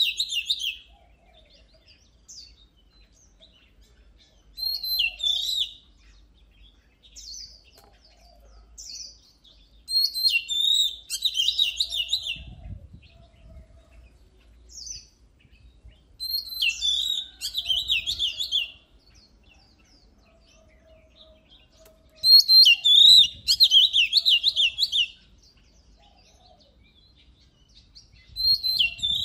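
Oriental magpie-robin singing: loud, rapid phrases of high, varied notes, each lasting one to two seconds, repeated about every five to six seconds with short pauses between them.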